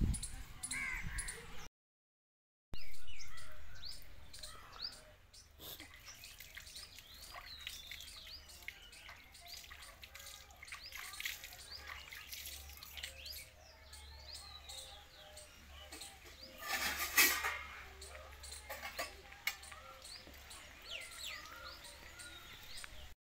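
Birds chirping and calling in the background, many short rising and falling notes throughout. About three quarters of the way through comes one brief, louder noisy rush.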